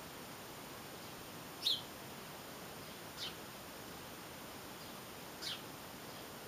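A small garden bird giving three short, high chirps that fall in pitch, spaced a second and a half to two seconds apart, the first the loudest, over a steady hiss.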